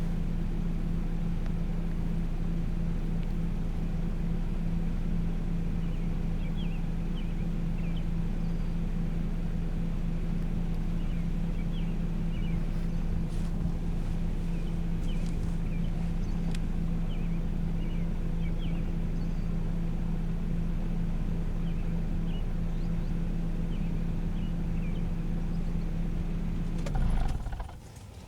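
Steady vehicle hum with one droning tone, cutting off suddenly after a brief louder bump near the end. Faint short high chirps sound now and then over it.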